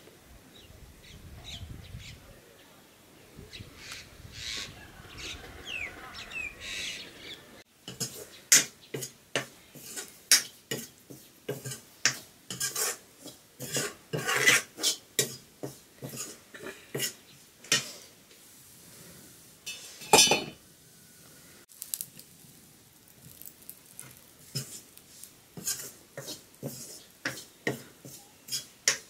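A wooden ladle stirring flour in a black pan, scraping and knocking against the pan in repeated strokes about twice a second. Before it, for the first several seconds, faint bird chirps.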